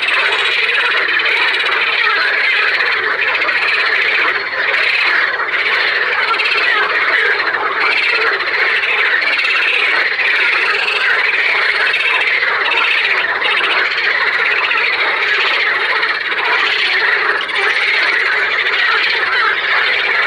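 A dense chorus of many frogs calling at once, a steady mass of overlapping croaking calls with no pauses.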